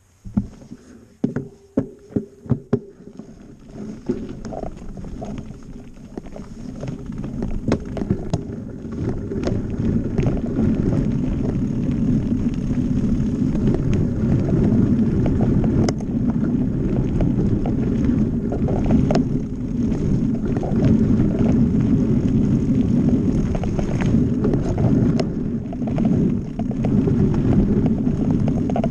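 Mountain bike setting off on a dirt and gravel forest trail: a few sharp clicks and knocks at the start, then the rumble and rattle of the tyres and bike over the trail surface with wind on the microphone, building over the first ten seconds as speed picks up and then staying steady.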